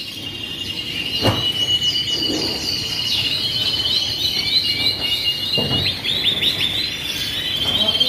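Several caged canaries singing at once: a steady rolling trill of rapid repeated notes, with quick chirps from other birds over it.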